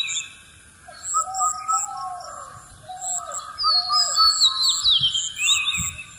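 Birds chirping and calling: repeated whistled phrases and quick high chirps in a busy, recurring pattern. It drops quieter briefly about half a second in, then picks up again.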